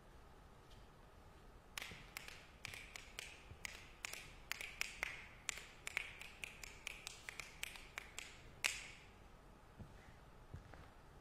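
Fingers snapping repeatedly: a quick, irregular run of sharp snaps starting about two seconds in and lasting about seven seconds, ending on one louder snap.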